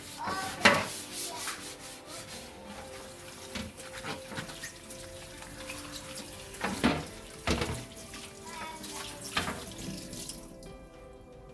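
Water running from a tap into a sink, with a few sharp knocks of things being handled, over soft background music.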